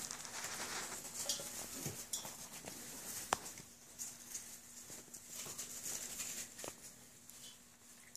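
Whippet puppies feeding from metal pans and shuffling about in wood-shaving bedding: a rustling patter with scattered light clicks, one sharper click about three seconds in.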